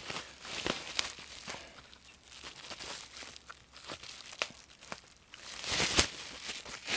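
Plastic and foam packaging crinkling and rustling as it is pulled off a lightsaber hilt. Scattered sharp crackles run through it, and there is a louder stretch of rustling near the end.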